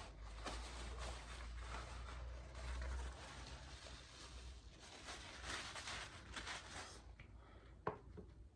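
Faint rustling and handling sounds, with a low hum for the first few seconds and a single sharp click near the end.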